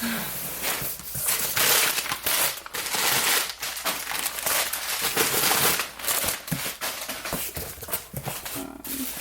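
Plastic bubble wrap being handled and pulled off candle jars, crinkling and rustling in irregular bursts with small crackles.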